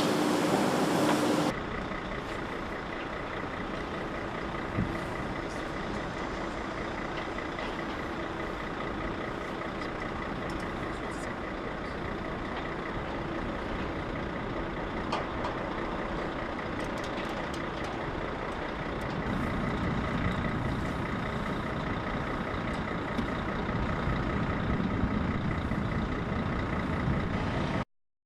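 Car-assembly-line machinery running: a steady mechanical noise with a couple of constant whining tones and occasional clicks. It gets a little louder about two-thirds of the way through and cuts off abruptly near the end.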